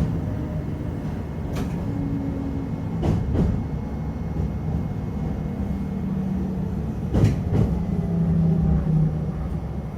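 HK100 railcar running along the track, heard on board: a steady rumble with a low hum. Sharp clicks come now and then, some in quick pairs, as the wheels cross rail joints.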